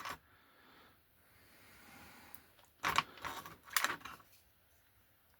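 A few small, sharp clicks and taps in two short clusters about three and four seconds in, from handling small model wagon kit parts and 5 mm magnets.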